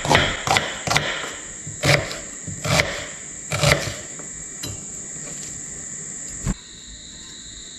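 Knife chopping vegetables on a cutting board: irregular sharp knocks, roughly one a second, the last clear one about six and a half seconds in, over a steady high-pitched background tone.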